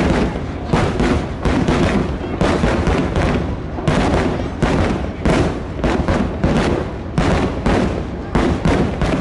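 Aerial firework shells bursting in a finale barrage: a dense, unbroken volley of booms, one or two a second, overlapping one another.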